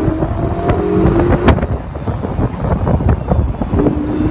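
2016 Ferrari California's twin-turbo V8 heard from the open cabin, its pitch rising under acceleration, easing off for a couple of seconds, then climbing again near the end. Heavy wind buffets the microphone, and there is a sharp click about a second and a half in.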